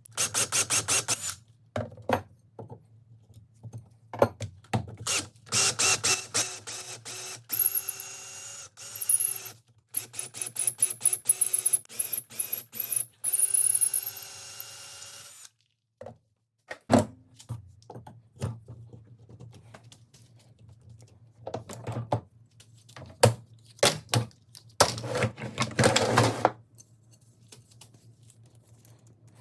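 Metalworking shop sounds: a run of sharp clicks and clatters, with a power tool running steadily with a high whine for about ten seconds in the middle.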